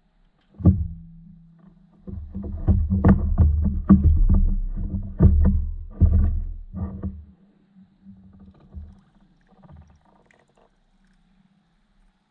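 A run of dull knocks and thumps on a fishing paddle board's deck as a caught fish is handled on it. There is one knock, then a dense flurry for several seconds, thinning to faint scattered taps near the end.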